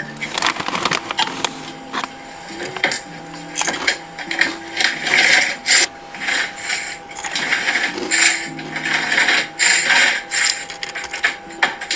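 Irregular bursts of rustling and crinkling from snacks and their packaging being handled, louder about five seconds in and again near the end, over soft background music.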